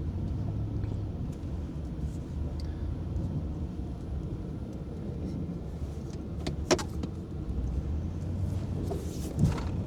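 Plow truck's engine running steadily while plowing snow, with a few sharp clicks about two-thirds of the way through and another near the end.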